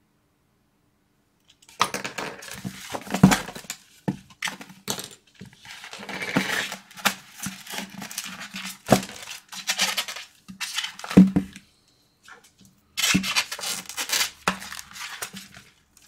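Small plastic kit parts clicking and clattering as they are handled and set down on a cutting mat, with plastic bags crinkling and rustling, starting about two seconds in.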